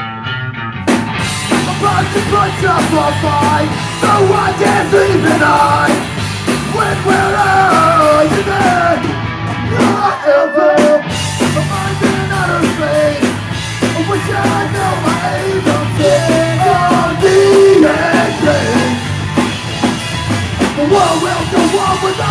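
Punk band playing live: electric guitars, bass and a drum kit going hard, with a brief break right at the start and another about ten seconds in before the band comes back in.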